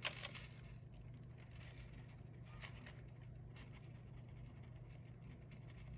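Hands handling a pocket watch and its card backing: a sharp click at the very start, then faint scattered small clicks and rustles as the case is fiddled with, over a steady low hum.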